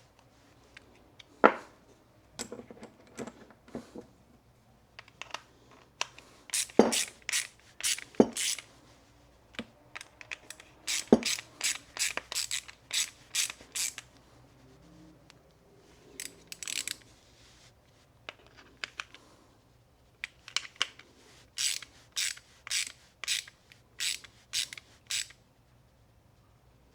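Ratchet clicking in short runs of sharp, evenly spaced clicks, about two a second, as screws are driven back in on a small-engine mower's carburetor.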